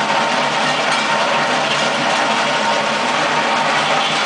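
Mustang 2076 turbo skid steer's diesel engine running hard while its hydraulically driven Simex T600 planer drum grinds into concrete: a loud, steady, gritty milling noise over the engine hum, with no let-up.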